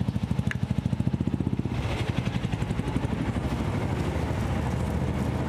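An engine running close by with a fast, even, low throb, strongest for the first couple of seconds and then steadier.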